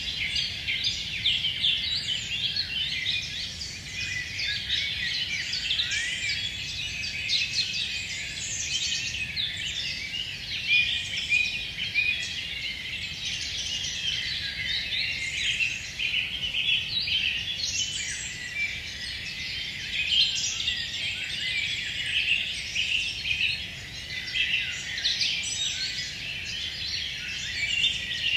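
A chorus of many songbirds singing at once, with quick high chirps and trills overlapping without a break.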